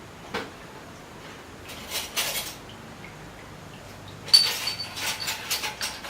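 Metal cooking utensils and a pan clinking and scraping, with a sharp metallic clink about four seconds in that rings briefly, followed by several quicker clinks.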